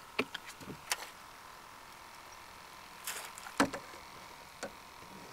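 Scattered sharp clicks and knocks of fishing gear being handled against the aluminum hull of a jon boat, with a brief rustle just after three seconds and the loudest knock soon after.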